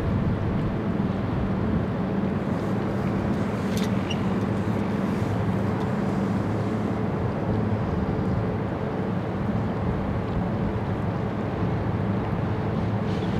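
Steady low drone of the Red Funnel vehicle ferry Red Eagle's diesel engines as the ship moves slowly alongside its berth, with a few low tones held throughout.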